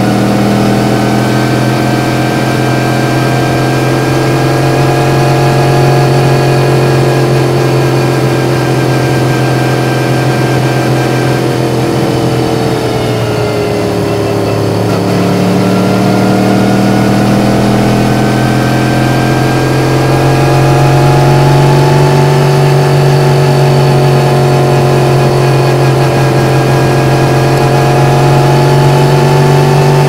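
Yamaha MT-10's crossplane inline-four engine running on the move under steady throttle. Its pitch sags about halfway through as the throttle is eased, then climbs back up and holds.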